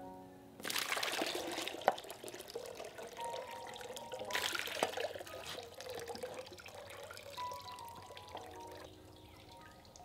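Sweet potato starch water pouring and splashing through a hanging cloth filter into a basin below, in two heavier surges about half a second and four seconds in, then thinning to a trickle.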